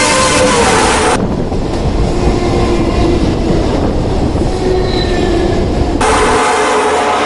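Electric commuter train running, a loud, heavy rumble of wheels on rails. About a second in the sound turns duller and lower, and it brightens again near the end.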